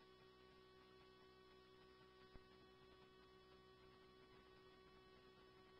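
Near silence on a scanner radio recording between transmissions: a faint steady hum, with one faint click about two seconds in.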